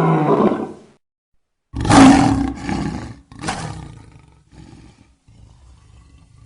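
Monstrous cat creature roar sound effects. One roar trails off in the first second, then after a short silence a loud roar comes at about two seconds, followed by two shorter roars and a low growl that breaks into pieces and fades near the end.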